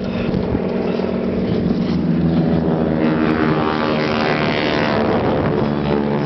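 Rigid inflatable boat's engine running steadily under way, over the hiss of wind and water; its pitch shifts and wavers in the second half.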